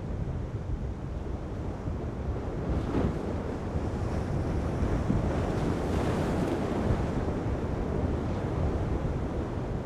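Rough sea with breaking waves and wind gusting on the microphone, the wash of water swelling louder for a few seconds in the middle.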